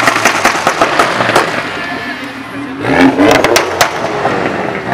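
SEAT León Cupra's turbocharged 2.0-litre four-cylinder driving slowly past, its exhaust crackling and popping. About three seconds in the engine revs up with a rising note and another run of pops.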